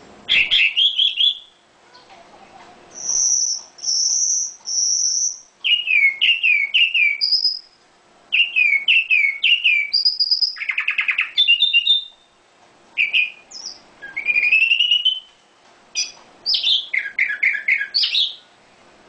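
A songbird singing a long, varied song: rapid runs of down-slurred notes, three high held whistles about three seconds in, and a harsh buzzy rattle about ten seconds in, phrases broken by short pauses.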